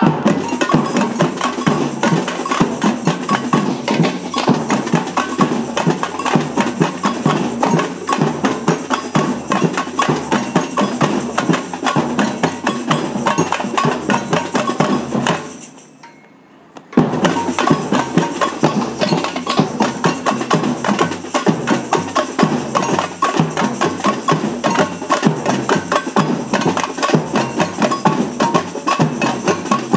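Batucada samba percussion band playing a fast, driving rhythm on tamborims, snare drums and surdo bass drums. About fifteen seconds in the whole band stops for a second and a half, then comes back in together on a sharp hit.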